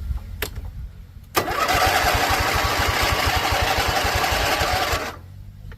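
Husqvarna Z254 zero-turn mower's electric starter cranking the engine for about four seconds, with an even chugging pulse. The engine does not catch, and the cranking stops abruptly: a no-start, which the owner puts down to fuel.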